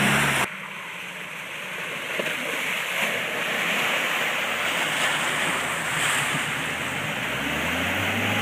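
Muddy water sloshing and churning around a red Suzuki Vitara as it wades through deep flood water on a muddy track, with the engine's low hum growing louder near the end.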